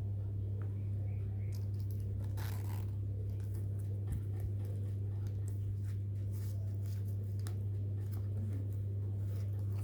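Faint rustling, small scrapes and light clicks from a wallet and its packaging being handled, over a steady low hum.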